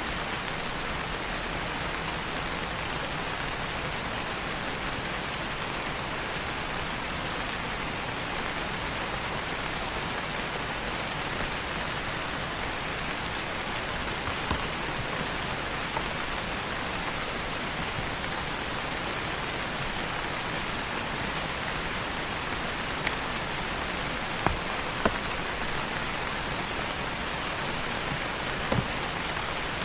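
Steady rain falling, an even hiss, with a few louder single drips or ticks in the second half.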